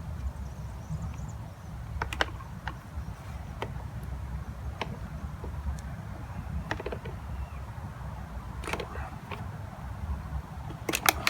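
Scattered light clicks and taps of motorcycle parts being handled, with a quick cluster of louder clicks near the end, over a steady low rumble.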